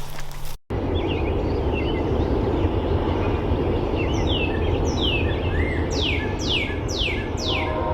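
A songbird singing a series of clear whistled notes that each slide downward, coming faster toward the end, over a steady outdoor noise haze. A brief rustle of footsteps cuts off at the very start.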